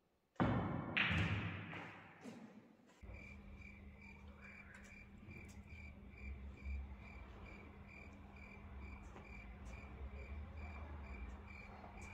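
Crickets chirping in an even, repeating pulse over a low steady hum. Near the start, a sudden loud hit sounds twice and fades out over about two seconds.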